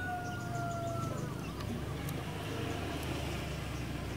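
Cinereous tit (glatik batu) calling in faint, rapid series of high notes over a steady low background rumble. A louder long, slightly falling call, another animal's, carries over from before and fades about a second in.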